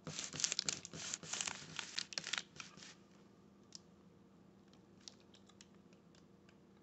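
Rustling and scraping of hands handling a flexible plastic quarter-round strip and sliding along the vinyl plank floor: a quick run of scrapes for about the first three seconds, then only a few faint ticks.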